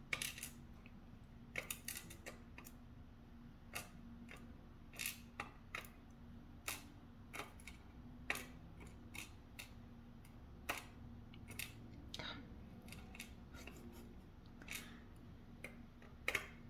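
Irregular light clicks and taps, about twenty spread unevenly through the stretch, as the small pins are tapped and shaken out of a disassembled BiLock NG lock core. A faint steady hum sits underneath.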